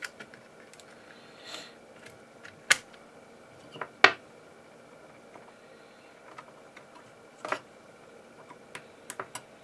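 A few sharp clicks and knocks of plastic parts and components being handled inside an opened Sony Vaio laptop, the loudest about four seconds in and a quick cluster near the end, over a faint steady hum.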